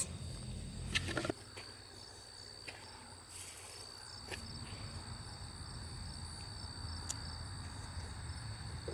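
Crickets keep up a steady high-pitched trill. A few light knocks and rustles come in over it, the loudest about a second in.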